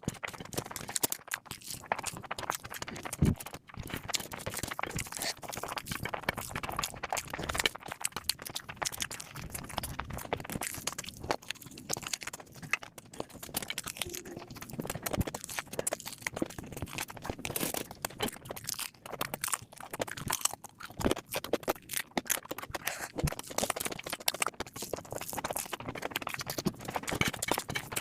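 Close-miked eating sounds: a person chewing and smacking food with wet mouth clicks and some crunching, going on without a break.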